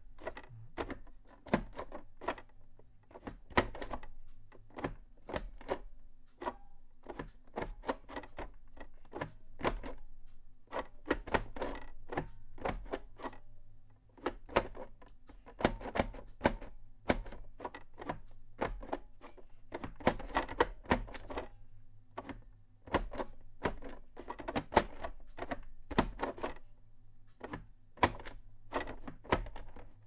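Orbitouch keyless keyboard being typed on: its two domes are slid and clicked into position, giving irregular clicks and knocks, often several a second, with a brief pause partway through.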